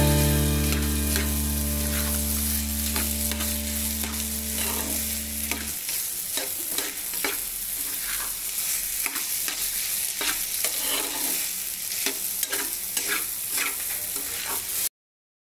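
Wooden spatula stirring and scraping food around a hot frying pan, with frying sizzle and repeated short scrapes against the pan. For the first six seconds a steady low hum sounds under it, then cuts off suddenly.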